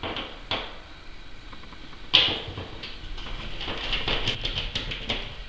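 Knocks and scraping from a steel mini split mounting plate and a spirit level being shifted and tapped against a wall. There are a few light knocks, one sharp knock about two seconds in, then a run of rubbing and small clicks.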